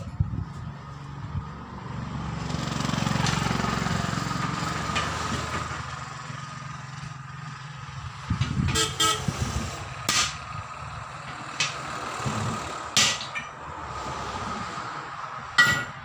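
A motor vehicle passes, its rumble swelling and fading over a few seconds, then a handful of sharp knocks, the loudest near the end, as tyre tools and steel truck rims are handled.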